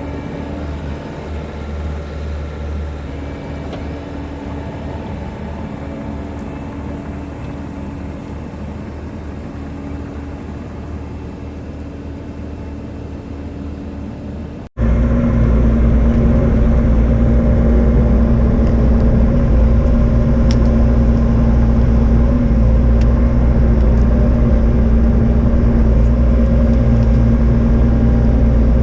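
Diesel engine of a piece of earth-moving equipment running steadily while the road is graded. About halfway through there is an abrupt cut to a much louder, closer engine sound with a stronger steady hum.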